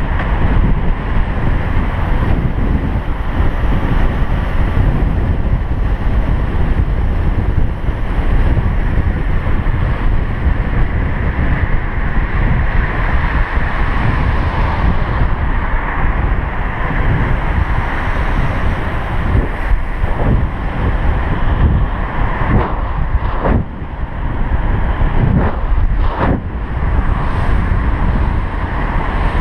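Loud wind noise buffeting a chest-mounted camera's microphone as a mountain bike runs fast down a paved road, mixed with tyre rumble. A few brief knocks come in the last third.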